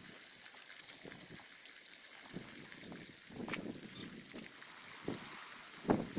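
Water running from a garden hose and trickling onto wet soil, with a couple of louder splashes as a kitten paws at the stream, one about halfway through and one near the end.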